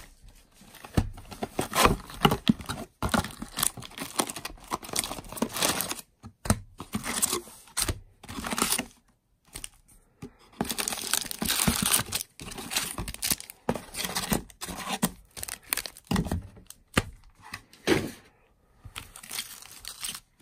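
Foil-wrapped Magic: The Gathering booster packs crinkling and rustling as they are handled, pulled from their box and stacked, with sharp tearing and crackling noises among the rustling and a few brief pauses.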